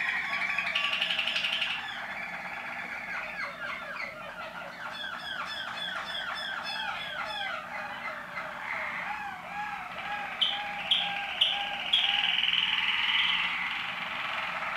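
Waterslager song canaries singing a long varied song. It runs through fast series of quick repeated notes, then lower rolling notes. About ten seconds in come four sharp loud notes, followed by a long steady high phrase.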